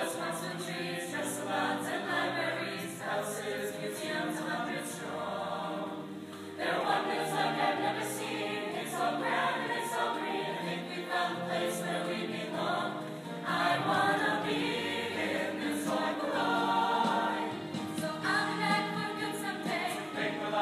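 Mixed-voice show choir singing in harmony, the volume swelling and falling back from phrase to phrase.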